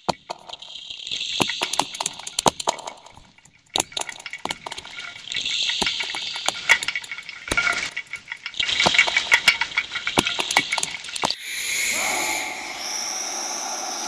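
Electronic sonification soundscape driven by the dancers' movements: scattered sharp clicks and crackles over a hissing, watery texture. About eleven seconds in, it changes to steady sustained tones.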